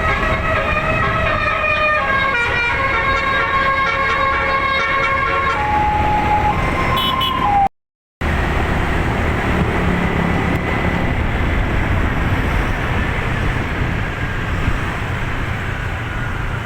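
Telolet basuri bus air horn playing a melody of held multi-note chords, changing notes every half second or so, then cutting off abruptly about halfway through. After a brief dropout comes steady bus engine and road noise with a faint whine.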